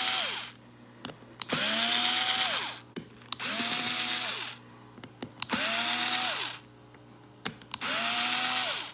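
Cordless drill driving the screws of a beadlock ring into an RC monster-truck wheel, one screw at a time. The motor whine climbs, holds about a second and winds down, about five times over, with small clicks between runs.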